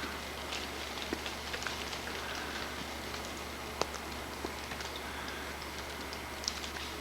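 Ice dropping off ice-coated trees, pattering with scattered light ticks at irregular intervals, one sharper tick a little before four seconds in.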